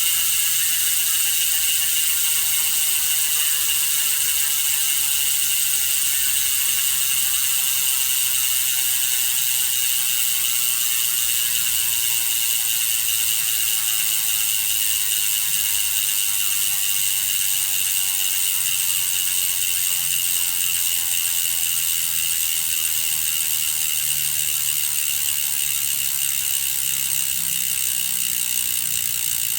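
Hope Pro 4 Boost rear hub freewheeling, its freehub pawls clicking so fast they merge into a loud, continuous ratcheting buzz. The buzz drops slowly in pitch as the coasting wheel gradually loses speed.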